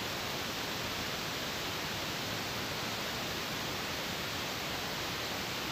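Steady, even hiss from a pan of curry broth boiling hard on the stove.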